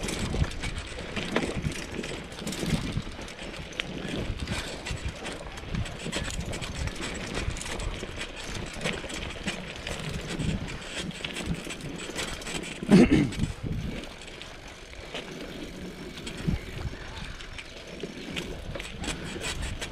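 Mountain bike rattling and crunching over a rough, rocky dirt track, with frequent small knocks from the bike being jolted, and one louder short burst about two-thirds of the way through.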